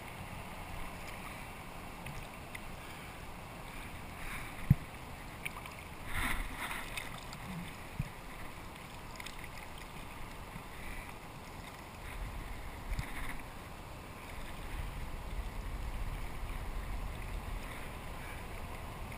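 Kayak sitting on calm water, with faint water sounds around the hull and a sharp knock about five seconds in. Near the end a kayak paddle strokes the water.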